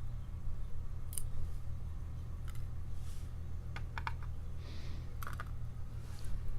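Scattered small metallic clicks and taps of tools against padlock parts as the lock is taken apart and its pins handled. A steady low hum runs underneath.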